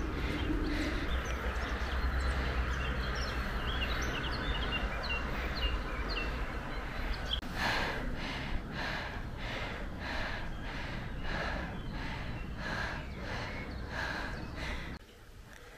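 Outdoor ambience with wind rumble on the microphone and birds chirping. From about halfway, steady walking footsteps on stone paving, roughly one and a half steps a second. The sound drops away abruptly near the end.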